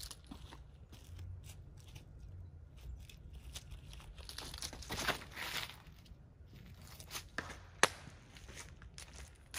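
Footsteps crunching and rustling through thick dry fallen leaves as a disc golfer steps up and runs up for a drive. One sharp crack near the end is the loudest sound.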